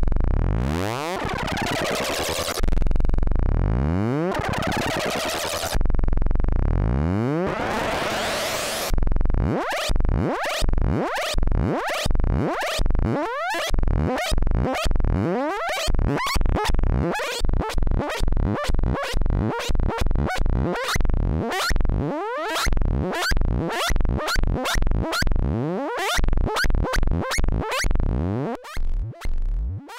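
Infernal Noise Machine desktop analog synthesizer, self-patched. It plays a noisy tone that sweeps upward three times, each sweep about three seconds long and starting with a loud hit. About nine seconds in it breaks into a fast pulsing rhythm of short hits, roughly two a second, which crowd closer together near the end.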